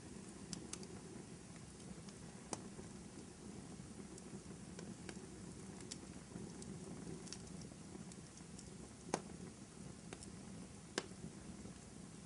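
Fireplace crackling: a steady low rumble of burning wood with scattered sharp pops, two louder pops near the end.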